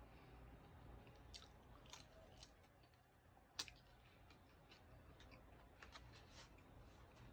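Faint chewing and wet mouth clicks of someone eating, with one sharper click about three and a half seconds in.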